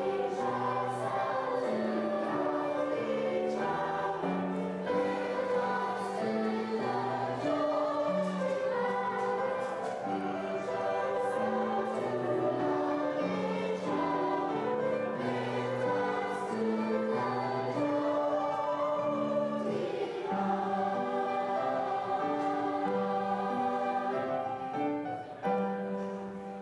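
Mixed choir of children and adults singing together in held notes that move step by step. The singing dies away near the end.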